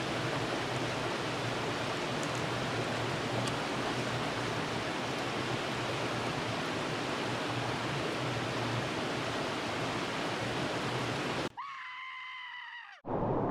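Steady rush of flowing stream water. About a second and a half before the end it cuts off abruptly and is replaced by a brief pitched sound that bends in pitch.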